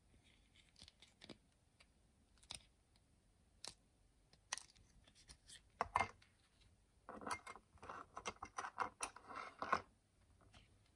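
Faint clicks, taps and scratchy rustles of vintage Swan fountain pen parts being handled and set down on a table, with a sharper knock about six seconds in and a dense run of small clicking and scraping from about seven to ten seconds.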